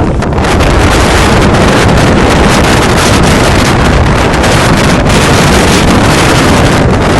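Loud, steady rushing noise of wind on the microphone, growing brighter and a little louder about half a second in.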